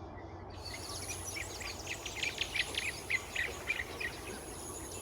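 Small birds chirping in quick, repeated calls, starting about half a second in, over a steady low background of outdoor ambience.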